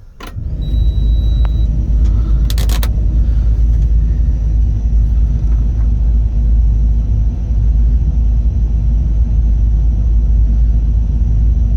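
Sany excavator's diesel engine starting up and settling straight into steady running, a loud, even, low rumble heard from inside the cab. A brief high beep sounds about a second in and a short hiss near two and a half seconds.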